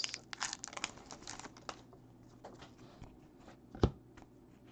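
Hockey cards being slid out of a torn foil pack wrapper, the foil crinkling with a run of quick small clicks, then the cards being flicked through one by one with light ticks. About four seconds in comes a single sharper tap, the loudest sound.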